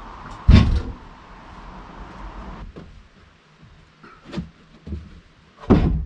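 Freshly sawn wooden board knocking and thudding as it is lifted off the sawmill bed and set down on a plank floor: a heavy thud about half a second in, a few lighter knocks, and another heavy thud near the end.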